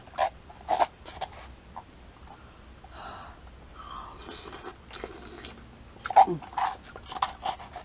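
A person chewing instant ramen noodle soup, with short wet smacking sounds in two clusters: one near the start and another from about six seconds in.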